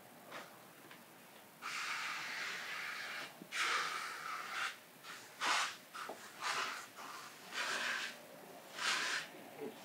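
Slip solution spraying from a pressurized spray gun onto wet paint protection film in a series of bursts. The first two bursts last a second or more each, and four shorter ones follow.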